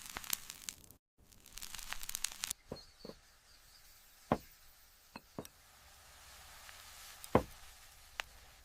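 A string of separate sharp knocks and clicks, the loudest a little after seven seconds in, with a short burst of dense crackling about a second in.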